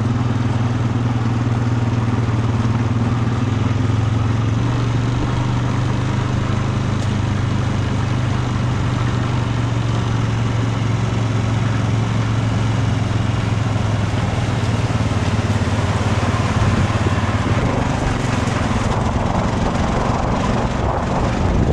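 ATV engine running at a steady speed as the quad is ridden, loud and close, a constant low hum.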